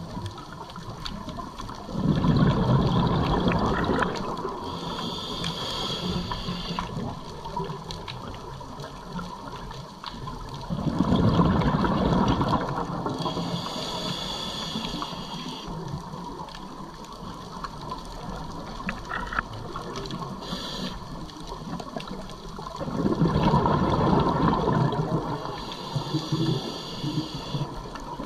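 Scuba diver breathing through a regulator underwater: three slow breaths about ten seconds apart. Each is a burst of exhaled bubbles, the loudest sound, followed a second or two later by the hiss of an inhalation through the regulator.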